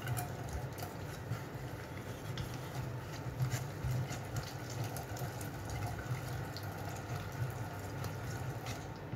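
Hand-cranked metal food mill turning, its blade pressing cooked tomatoes through the sieve with a steady wet squelching and many small scattered clicks.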